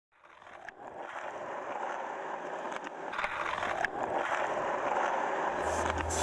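Skateboard wheels rolling on pavement, fading in and growing steadily louder, with a few sharp clacks. A low bass note of music comes in near the end.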